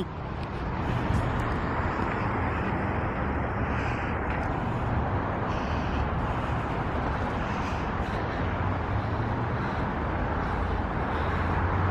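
Steady road-traffic noise from the Pacific Coast Highway below, an even rumble without breaks.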